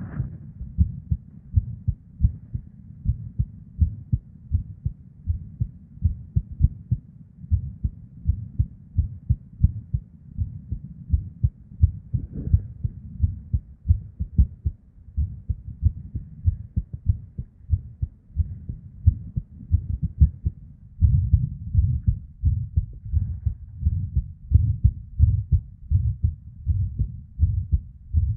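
A woman's heartbeat recorded close up from inside the chest: repeated low lub-dub thumps over a continuous low whoosh of blood flow (a murmur), the whoosh growing louder about two-thirds of the way through. The heart's rhythm is irregular, with premature ventricular contractions (ectopic beats).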